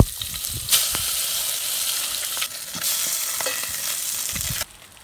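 Fish fillet sizzling as it fries in a stainless steel pot, with a wooden spatula scraping and clicking against the pot as the fish is turned. The sizzling drops away abruptly near the end.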